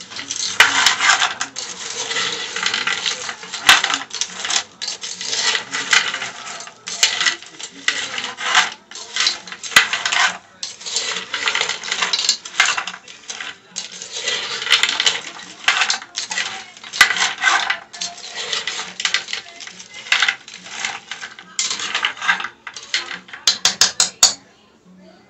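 Metal spoon stirring frozen cut okra in a pot, scraping and clinking against the pot in repeated strokes with short pauses. A quick run of sharp clicks comes near the end.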